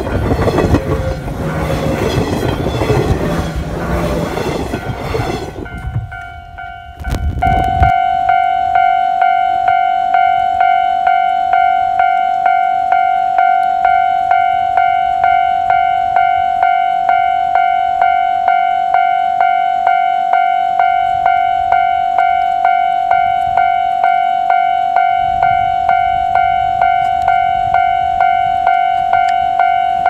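JR 719 series electric train passing close by at a level crossing, with loud wheel and running noise for the first six seconds. After a brief lull, a Japanese level-crossing warning bell starts ringing, an even electronic ding about twice a second. Near the end a low rumble grows as the next train approaches.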